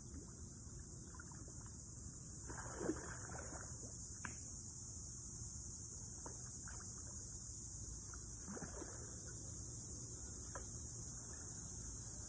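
Steady high-pitched chirring of an insect chorus, with a few brief handling noises on top, the loudest a sharp knock about three seconds in.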